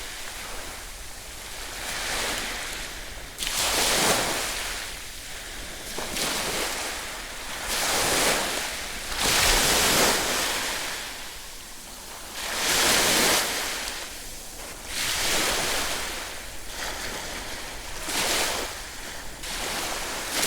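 Ocean surf: waves breaking and washing in, surging and fading every few seconds.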